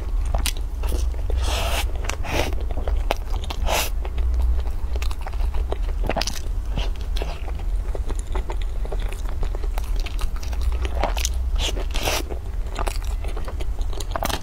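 Close-miked biting and chewing of a dark bread bun, with irregular crunching and crackling through the whole stretch, over a steady low hum.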